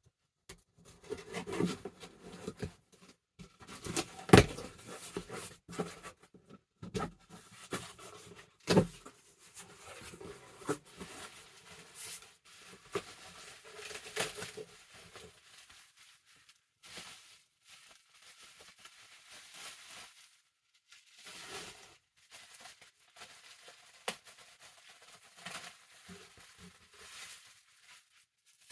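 A mail package being torn open and handled: packaging rustling and crinkling in irregular bursts, with a couple of sharp knocks about 4 and 9 seconds in, and lighter rustles toward the end.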